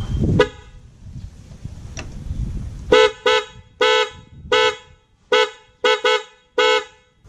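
An MOCC electric dual horn with both of its horns connected, beeping in short blasts as its positive wire is tapped by hand: a brief chirp just after the start, then eight short beeps from about three seconds in. This is the horn's proper sound once both horns are wired.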